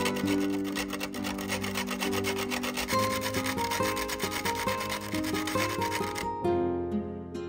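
Dry baguette bread grated on a stainless steel box grater into crumbs: rapid, repeated scraping strokes that stop about six seconds in.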